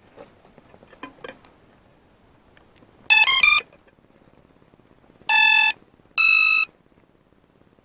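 Three short electronic beeps from a small FPV racing drone, each about half a second long. The first steps through a few pitches; the second and third are steady tones, the third a little higher. A few faint ticks come before them.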